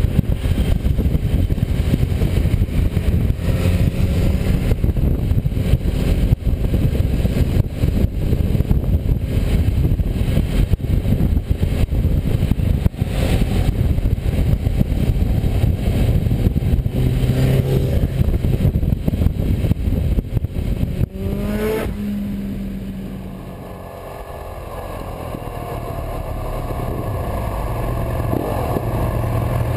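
Motorcycle riding on the road: wind buffeting the on-bike camera's microphone over the engine. About two-thirds of the way in the sound cuts abruptly to a calmer stretch where the engine note falls away as the bike slows, then builds again as it accelerates.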